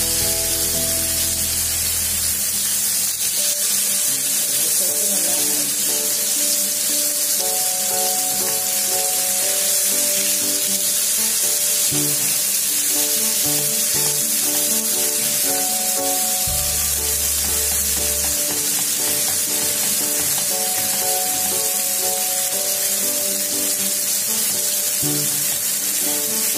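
Masala-marinated chicken pieces sizzling steadily as they shallow-fry in hot oil in a nonstick pan, with background music underneath.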